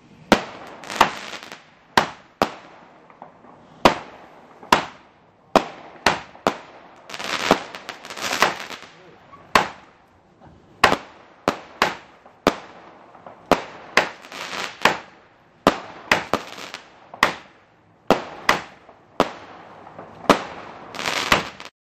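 Back-garden consumer fireworks firing in a rapid string of sharp bangs, more than one a second, each followed by a fading crackle as the shots burst. The sound stops abruptly near the end.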